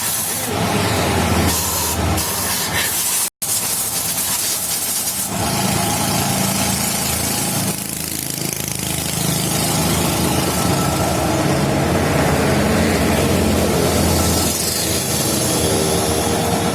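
A steady hiss that cuts off abruptly just after three seconds in, then, from about five seconds in, a motorcycle engine running steadily.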